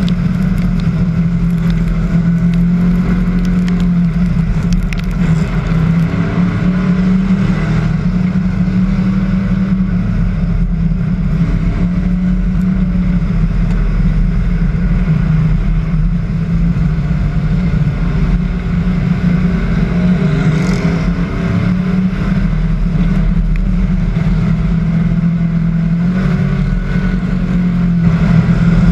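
Hobby stock race car engine running steadily at racing speed, heard from on board the car.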